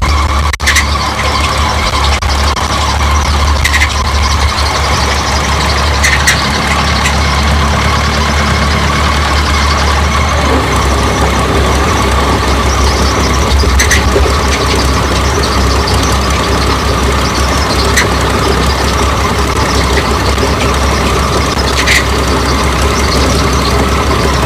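A 1545-S rice combine harvester running loudly and steadily. A short, high squeak comes through every few seconds.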